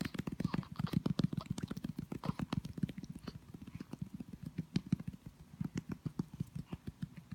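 Rapid, rhythmic patting of a hand on a newborn baby's back: many soft, dull pats a second, a massage-style tapping given to bring up wind.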